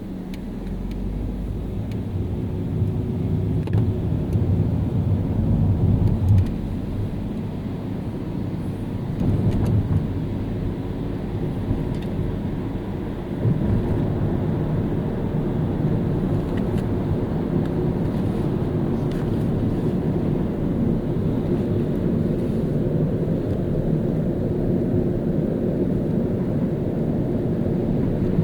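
Car driving through city streets: low engine and tyre rumble that builds over the first six seconds, drops off suddenly, then runs on steadily.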